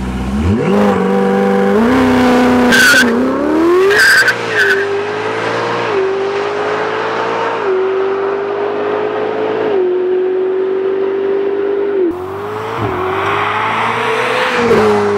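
Ferrari 488 Spyder's twin-turbo V8 with a Novitec Rosso aftermarket exhaust accelerating away through the gears, the engine note climbing and dropping at each shift. Sharp exhaust cracks ring out at the gear changes about three and four seconds in.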